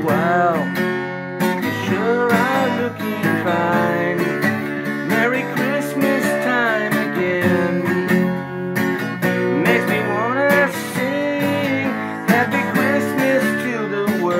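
Instrumental music: strummed acoustic guitar under a lead melody whose notes repeatedly bend up and down in pitch.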